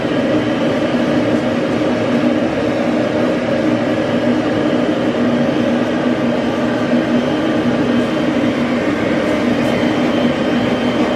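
Hose-fed pet grooming dryer blowing steadily on a puppy's coat: a constant rush of air with a steady motor hum under it.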